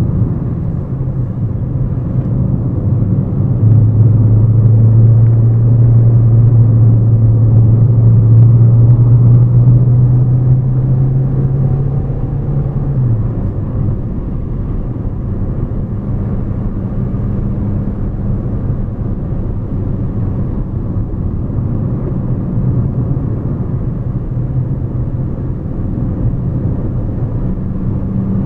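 Hyundai Elantra rental car driving, heard from inside the cabin: a steady engine drone over road and tyre noise. It grows louder at about four seconds in, then eases off and drops in pitch just before halfway.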